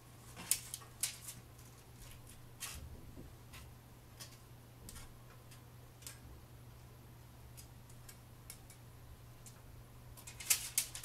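Small clicks and taps at uneven intervals from sandwich makings and utensils being handled, over a faint low steady hum. A quick run of louder clicks comes near the end.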